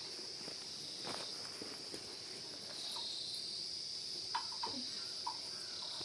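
Crickets chirring in a steady, continuous high-pitched drone, with a few faint small clicks about four to five seconds in.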